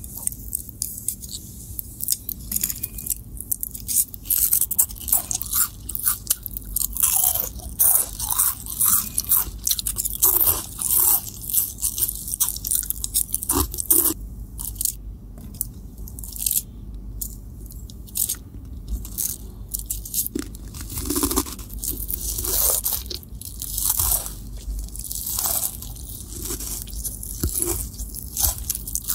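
Close-miked crunching and chewing of cheese-coated puffed corn snacks: many crisp, irregular crackles bite after bite, with short pauses between mouthfuls.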